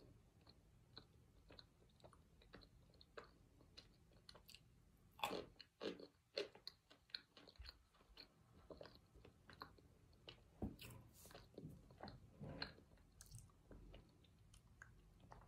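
Quiet chewing of a soft chunk of baked cornstarch, with many small crunching clicks, a burst of louder crunches about five seconds in and more past the middle. The chunk is not hard and still slightly wet inside.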